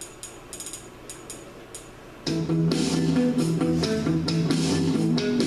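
Short menu ticks as the PlayStation 3 game menu scrolls. About two seconds in, loud guitar music with bass starts, played by the repaired Sony XBR LCD TV's own speakers.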